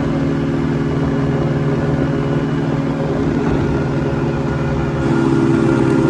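CGS Hawk ultralight aircraft's engine and propeller running steadily at constant power, getting slightly louder near the end.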